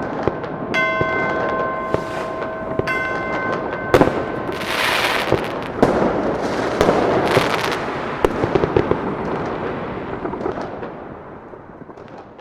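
Two ringing clock-bell strikes about two seconds apart over a background of popping fireworks. About four seconds in a loud bang sets off a dense barrage of fireworks explosions and crackling, which thins and fades out near the end.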